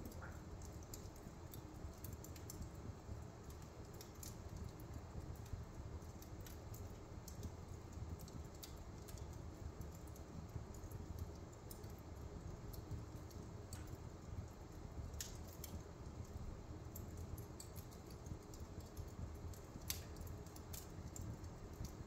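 Wood fire in a fireplace crackling: irregular small ticks and snaps of burning logs, with a couple of louder pops about 15 and 20 seconds in, over a low steady rumble.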